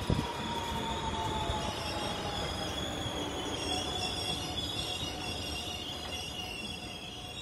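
Electric commuter trains on the track, with wheels squealing in several high, steady tones while a lower tone slowly falls in pitch. A single sharp knock comes right at the start.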